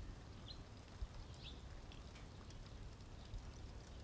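Faint outdoor ambience: a low steady rumble with two short, high bird chirps, about half a second and a second and a half in.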